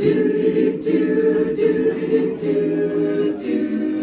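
Mixed-voice barbershop chorus singing a cappella in close four-part harmony, holding full chords that change about once a second.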